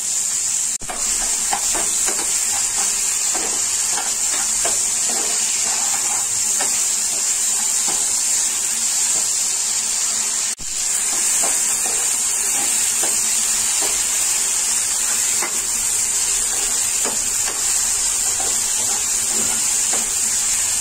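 Chopped tomatoes and onions frying in hot oil in a non-stick pan, a steady high sizzle, with light scrapes of a slotted spatula stirring them now and then. The tomatoes are being fried until soft.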